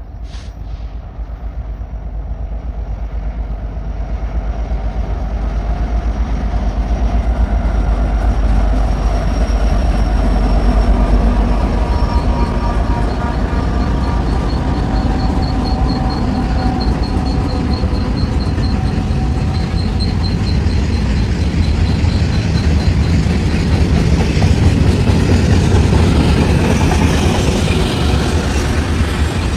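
BNSF manifest freight train rolling past, a heavy low rumble that builds over the first ten seconds and then holds steady, with a faint high wheel squeal through the middle.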